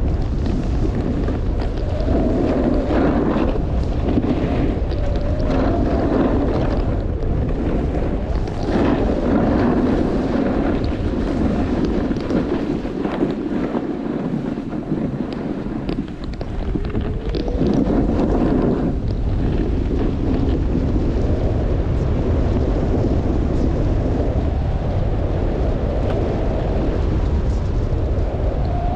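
Wind buffeting the microphone on a downhill run on snow, over a hiss and scrape of sliding on the snow that swells and fades every few seconds. It eases for a few seconds around the middle.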